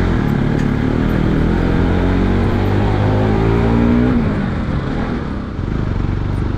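Vehicle engine pulling under throttle, its pitch rising for a few seconds and then falling away about four seconds in, over a steady rumble of road noise.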